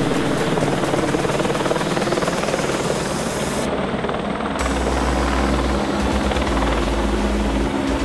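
A helicopter flying overhead and away, its rotor and turbine running steadily; about halfway through a strong low rumble joins in.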